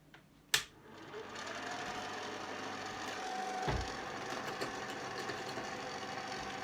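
Slide projector switched on with a click, its cooling fan motor spinning up over about a second and then running steadily with a faint whine. A dull knock near the middle.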